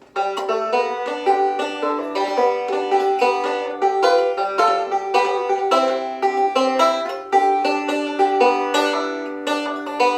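Hatfield Walnut Special walnut-resonator banjo being picked: a quick, unbroken run of bright plucked notes that starts suddenly right at the outset.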